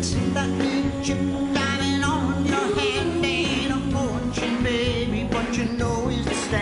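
Live band playing an upbeat 1960s pop song with singing over it: bass and drums keep a steady beat under a sung melody that wavers in pitch about halfway through.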